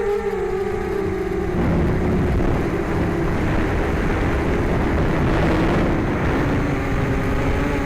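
Six small brushless motors and two-blade props of a mini hexacopter whining in flight. About a second and a half in, a rushing noise covers the whine, and near the end the whine comes back at a lower pitch.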